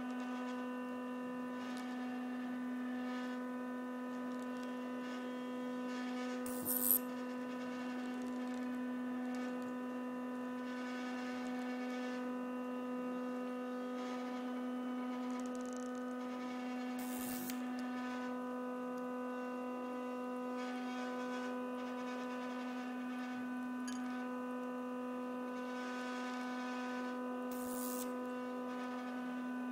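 Steady electric hum with a stack of evenly spaced overtones, unchanging throughout. About every ten seconds a short high hiss cuts in, three times; the first, about seven seconds in, is the loudest.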